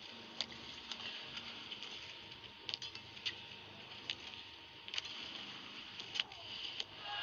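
A badminton rally: sharp racket strikes on the shuttlecock, a second or less apart, over faint arena background noise. A louder wash of noise swells at the very end as the rally finishes.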